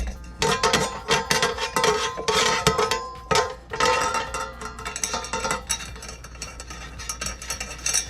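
Wrench turning the bolt off the metal fan of a Ninja Foodi Deluxe, with repeated metallic clicks and clinks and a ringing of the metal parts.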